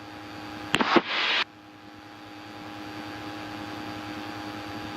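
Steady engine drone of a light aircraft, heard inside the cabin through the intercom, with a few constant tones in it. About a second in, a brief burst of radio static that starts and stops with clicks.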